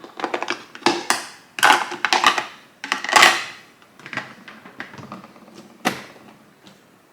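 Hard plastic parts of a drip coffee maker clicking and clattering as they are handled, with the removable drip tray being moved and refitted. A run of clacks fills the first three and a half seconds, and a single sharp click comes about six seconds in.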